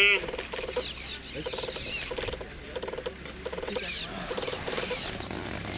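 African wild dogs twittering and squeaking as the pack feeds on a wildebeest: short chattering bursts about two to three a second, with thin high squeaks over them.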